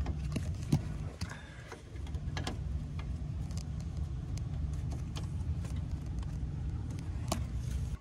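Hands fitting a refrigerant gauge hose's quick coupler onto an A/C service port: scattered clicks and knocks of metal fittings, the sharpest about a second in, over a steady low machine hum.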